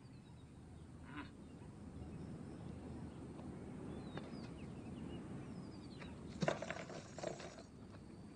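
Outdoor film-soundtrack ambience: a low steady background haze with a few faint bird chirps. A brief louder burst of sound comes about six and a half seconds in.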